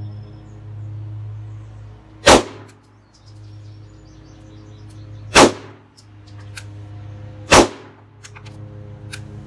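Three single shots from a Canik TP9 SFx 9mm pistol, each a sharp crack with a short ring-out. The second comes about three seconds after the first and the third about two seconds after that, with a few faint clicks between them.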